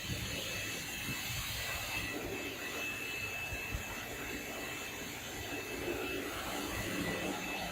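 Burner of a small Bosch steam boiler firing: a steady roar with a thin, high, steady whine over it.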